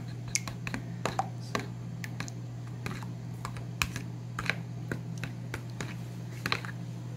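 Metal spoon clicking irregularly against the side of a bowl as raw eggs are beaten by hand, a few taps a second, over a steady low hum.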